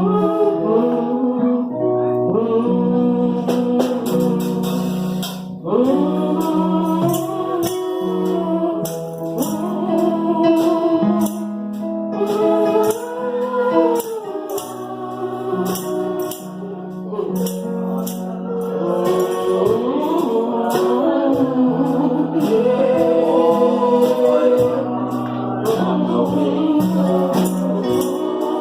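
Gospel congregation singing a slow hymn to keyboard accompaniment, with a tambourine shaken in a steady rhythm.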